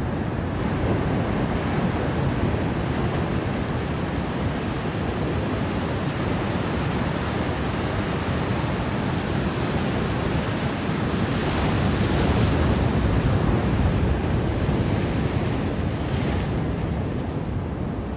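Ocean surf washing on a beach, with wind buffeting the microphone; the wash swells louder about twelve seconds in.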